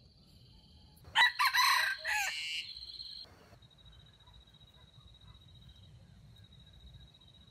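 A junglefowl rooster crows once, a single crow of about two seconds starting a little over a second in. A steady high insect trill runs underneath.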